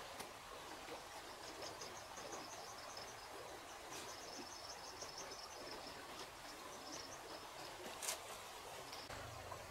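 Faint rural outdoor ambience with a high, rapid run of chirps lasting several seconds. A few sharp clicks are heard, the loudest near the end.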